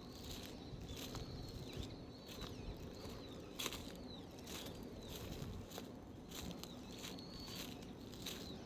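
Footsteps of a person walking, about two steps a second. Faint thin high whistles rise and fall over them.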